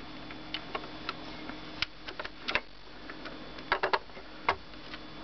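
Hard plastic toy tow truck being handled, turned over and set back down: scattered light clicks and knocks, with a quick run of three clicks near the end.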